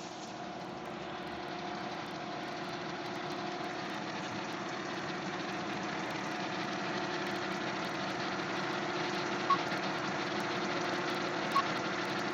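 Lexus GS 300's inline-six engine idling steadily, slowly getting a little louder. Two short high beeps sound near the end, about two seconds apart.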